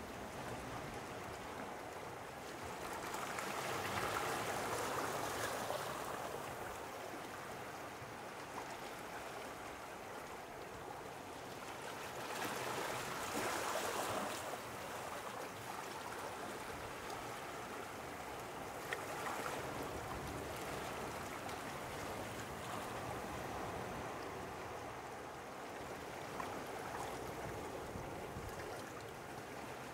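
Small sea waves washing against the shore in an even wash of water noise, swelling louder every several seconds, most strongly about four and thirteen seconds in.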